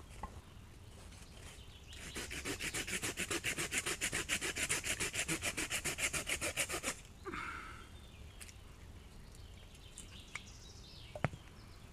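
Folding hand saw cutting through a small stick of wood with rapid back-and-forth strokes, starting about two seconds in and lasting about five seconds. A single sharp click comes near the end.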